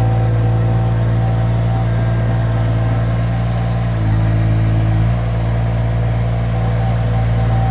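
Mini skid steer's engine running steadily at working throttle, its pitch dipping slightly for about a second about four seconds in.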